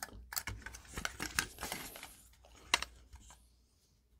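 Hands handling a plastic light fixture base and its wires: a run of small clicks and rustles, with one sharper click near the three-second mark.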